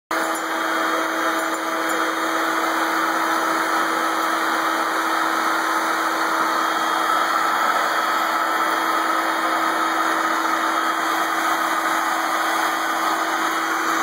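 Vacuum cleaner running steadily: a constant whirring drone with a low steady hum under it.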